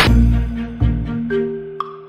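Background music: a few long held notes that fade away, with a short high ping near the end.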